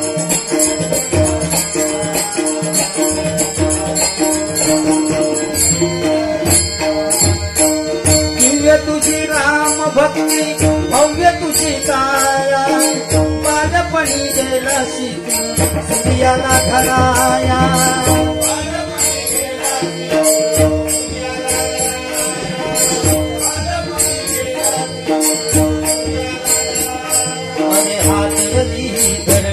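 Instrumental bhajan gajar: a harmonium holds a sustained melody over a steady hand-drum beat, with small hand cymbals clinking in fast, even rhythm. A few short melodic runs come in partway through.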